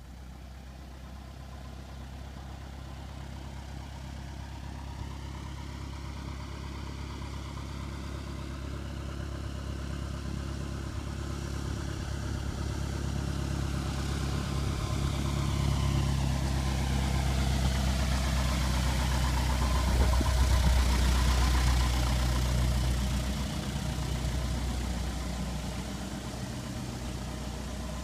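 Single-engine light airplane's piston engine and propeller at low taxi power, a steady drone that grows steadily louder as the plane taxis closer. It is loudest about three-quarters of the way in, then eases off a little as the plane turns past.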